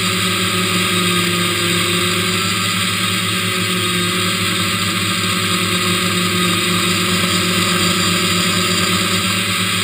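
Hexacopter's six electric motors and propellers running with a steady buzz in flight, heard from the GoPro mounted on the craft.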